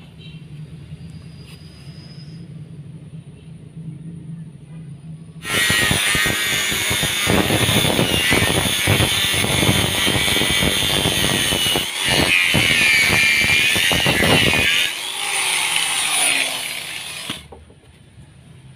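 Bosch GWS 6-100 angle grinder with a thin cutting disc, switched on about five seconds in and cutting into a wooden board for about ten seconds, its whine wavering under load. Near the end it is switched off and spins down, its pitch falling.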